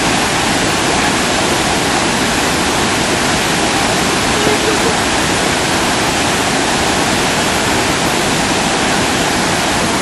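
Iguazu Falls pouring: a loud, steady rush of falling water.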